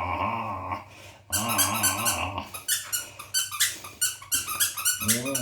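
Collie mix puppy growling as she chews a squeaky plush toy, which squeaks rapidly many times over. The growl comes at the start and again near the end, with the squeaks in between.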